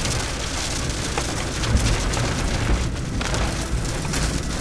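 Wind and rain during a thunderstorm: a steady hiss of rain with scattered drop hits, over a heavy, gusting rumble of wind buffeting.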